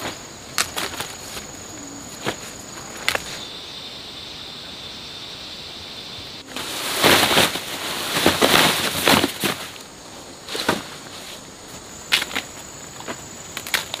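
Insects keep up a steady high-pitched drone outdoors, with scattered sharp snaps. About halfway through comes a few seconds of loud rustling and crackling, like dry plant material being handled or broken.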